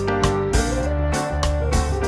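Background music: a keyboard melody of held notes over a steady beat.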